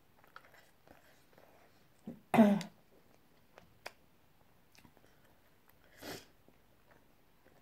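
A woman coughs once, short and sharp, a little over two seconds in, with a softer breathy puff near six seconds. Faint chewing and mouth clicks come between.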